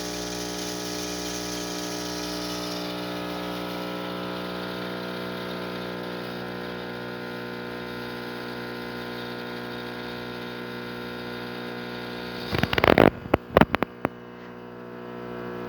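Rancilio Silvia espresso machine's vibratory pump humming steadily as it pulls a shot of espresso, with a higher hiss that drops away about three seconds in. Near the end comes a short burst of loud knocks and clatter.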